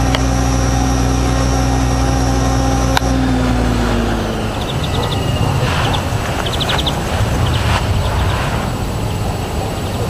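Electric RC helicopter's motor and rotor running steadily, then about three seconds in a click and the pitch sliding down as the motor is cut and the rotor spins down. After that comes a low rumbling noise with a few short runs of high chirps.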